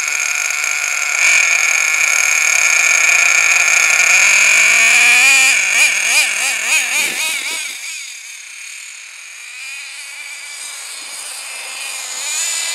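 Nitro RC truck's HPI F4.6 two-stroke glow engine running with a high-pitched whine, climbing in pitch about four seconds in and then revving up and down in quick blips. Its sound fades sharply about eight seconds in as the truck drives off, then grows again near the end.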